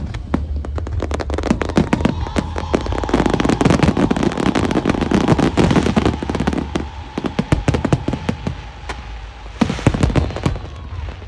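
Fireworks and firecrackers going off: a dense, rapid run of sharp bangs and crackles that thins out near the end.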